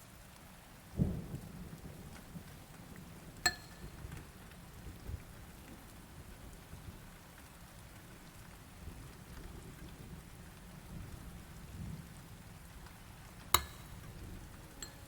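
A spoon working a thick mixture in a small bowl: a soft steady scraping, a dull knock about a second in, and two sharp clinks of the spoon against the bowl, the first with a brief ring.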